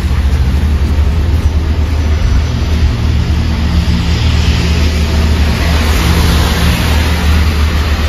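Steady low wind rumble on the microphone in a snowstorm, with the hiss of a car passing on the wet, snowy road swelling in the middle.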